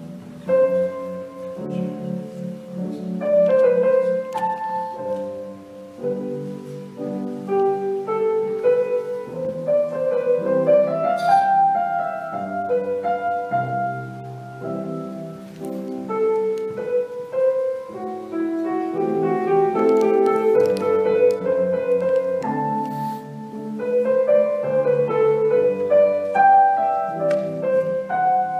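Instrumental keyboard music, a slow piece of held chords with a melody moving above them.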